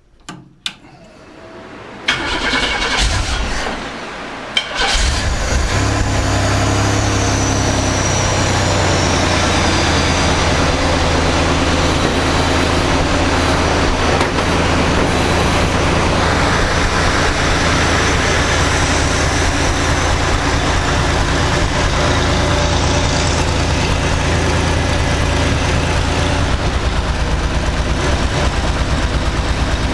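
GM 3.4-litre SFI V6 cranked over from cold, catching about five seconds in and settling into a steady idle. It idles smoothly for now, before the rough cold-idle popping sets in.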